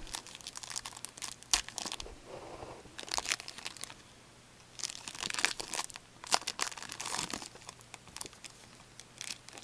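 Foil trading card pack wrappers crinkling and tearing as packs are handled and opened by hand, in several irregular spells of crackling with short pauses between.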